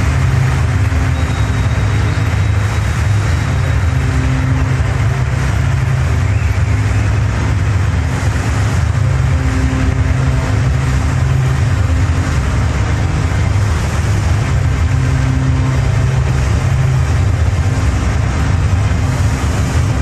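Loud, steady arena ambience dominated by a deep low rumble, with faint held tones coming and going over it.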